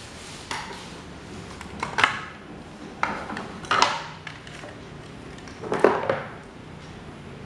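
Metal parts of an old desk fan clinking and clattering as they are handled, in about five separate knocks with short ringing. The loudest knocks come about two seconds and six seconds in.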